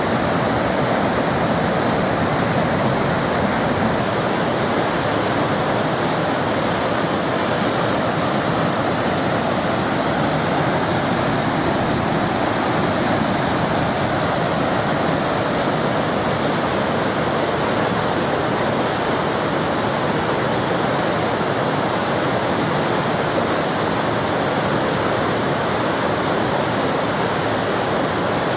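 Waterfall: water pouring and splashing into a pool, a loud, steady rushing noise.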